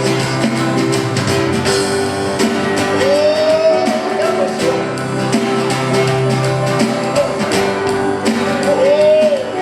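Live worship band music in an instrumental break between choruses: guitar to the fore over a steady beat, with a few gliding melodic lines.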